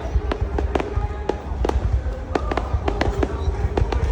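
Fireworks going off in a rapid, irregular string of sharp bangs, about three a second, over a low rumble.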